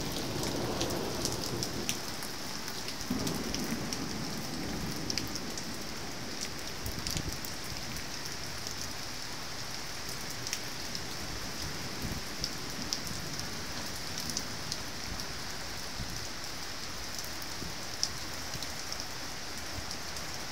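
Steady heavy rain in a thunderstorm, pouring with scattered sharp ticks of drops striking hard surfaces. A low rumble of thunder rises twice in the first few seconds.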